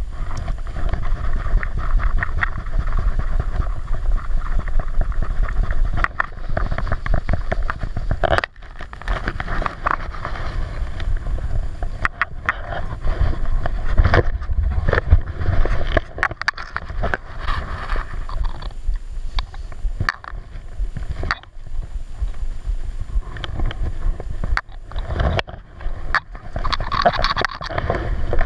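Wind buffeting the microphone outdoors, a steady low rumble with many irregular clicks and knocks.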